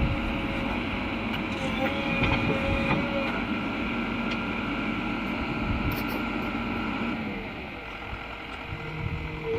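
JCB 3DX backhoe loader's diesel engine running steadily, with several steady high tones over the drone. It eases off a little about three quarters of the way through, then picks up again.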